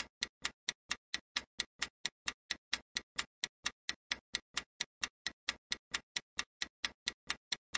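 Quiz countdown-timer sound effect: a clock ticking steadily at about four ticks a second, marking the time to answer.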